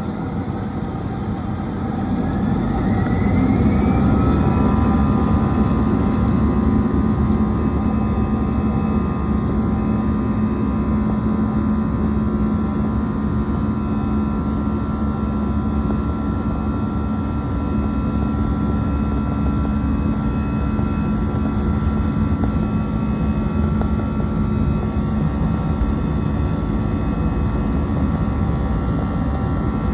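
Airbus A320 jet engines spooling up to takeoff power, heard from inside the cabin. A whine rises about two to four seconds in, then settles into a steady high whine over a loud, deep cabin hum as the airliner accelerates down the runway.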